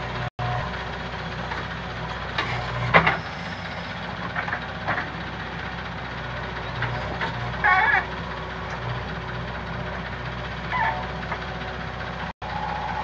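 JCB backhoe loader's diesel engine running steadily as it digs and loads soil, with a metallic clank about three seconds in and a brief higher-pitched squeal near eight seconds.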